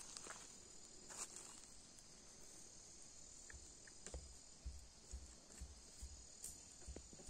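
Faint, steady high-pitched chirring of insects such as crickets, with scattered small clicks. From about four seconds in there are soft low thumps roughly every half second.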